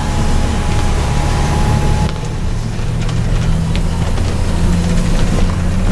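Steady engine drone and road hiss heard from inside a tour coach driving on a wet road; about two seconds in the hiss eases and the engine note shifts.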